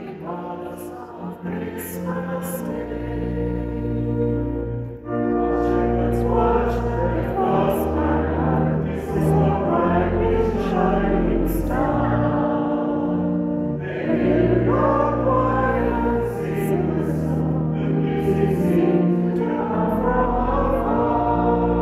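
Choral music: a choir singing held chords over a steady low bass, with short breaks between phrases about five and fourteen seconds in.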